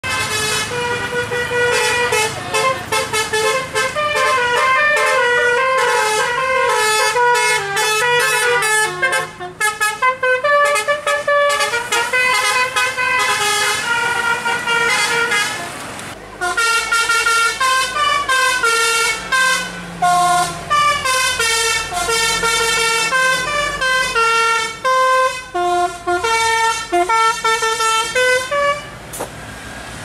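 Telolet basuri melody air horn playing a fast tune of stepped notes. It breaks off briefly about halfway through, then plays a second tune.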